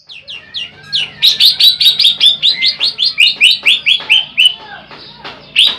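Greater green leafbird (cucak ijo) singing a fast run of loud, downward-slurred whistled notes, about four or five a second. The song falls quiet briefly near the end, then resumes.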